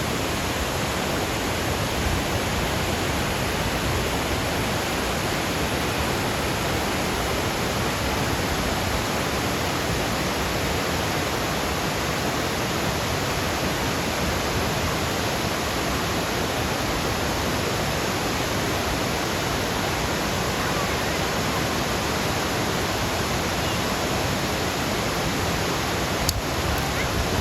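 Ithaca Falls, a large waterfall, pouring with a steady, unbroken rush of falling water that does not change in level.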